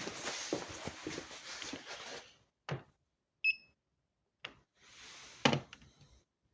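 Rustling handling noise for about two seconds, then a few sharp knocks in near silence, the loudest near the end, and one short, high electronic beep a little past the middle.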